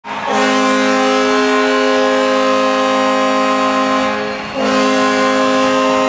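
Custom hockey goal horn sounding a loud, steady chord of several tones: one long blast, a short break about four seconds in, then a second long blast.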